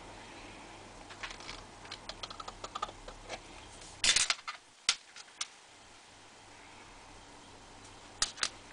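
Steel scriber point scratching and ticking around the rim of a fired brass cartridge case on a steel blank: a run of light ticks, then the scriber clatters down on the bench about four seconds in, with a few single clicks after. Two sharp clicks near the end as the brass case and blank are handled.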